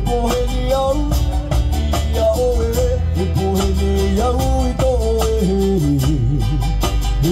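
Live band music: strummed acoustic guitars and ukuleles with electric guitar and bass over a PA, with singing carrying the melody and a steady strumming beat.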